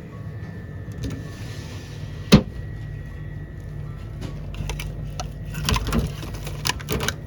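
A single sharp knock about two seconds in, then a run of clicks and knocks in the second half, over a steady low hum.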